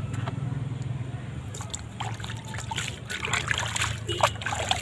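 Hands splashing and sloshing a small plastic ball in a basin of soapy water, with the splashes starting about a second and a half in, over a low steady hum.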